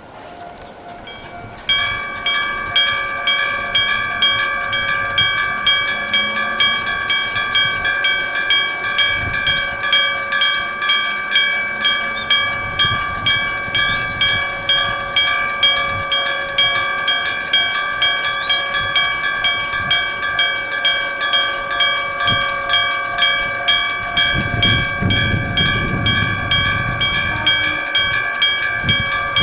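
Electric-bell (denshō-type) level-crossing alarm that starts about two seconds in: a bell mounted on the crossing post, struck directly by an electric hammer in a fast, even run of loud 'kan! kan! kan!' strikes, with a ringing tone that hangs on between strikes. A low rumble joins near the end.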